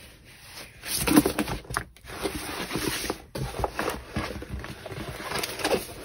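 Rolled diamond painting canvas being unrolled and spread flat by hand, its plastic-covered surface rustling and crinkling in irregular strokes, loudest about a second in.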